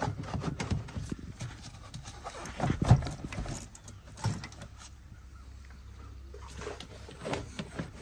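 Plastic engine air box and its ribbed rubber intake tube being worked loose and lifted out, giving irregular plastic knocks and rattles. A sharp knock about three seconds in is the loudest, with another a little after four seconds.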